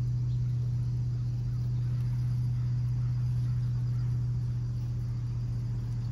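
Steady low hum of a running electric motor, one strong deep tone with fainter higher tones over it, unchanging throughout.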